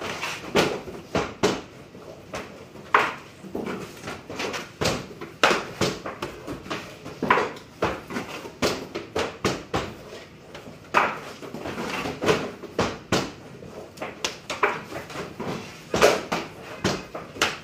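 Hand screen printing: wooden screen frames and pallets clacking and knocking irregularly, about two a second, with short scrapes as the screen is raised, lowered and pulled over the fabric.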